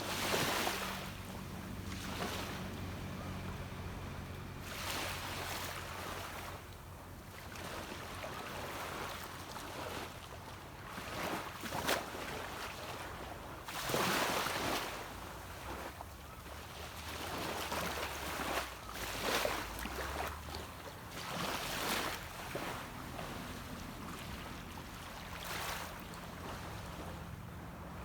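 Small waves breaking and washing up a beach every few seconds, with a distant boat engine's low, steady hum beneath them that fades about twenty seconds in and returns near the end.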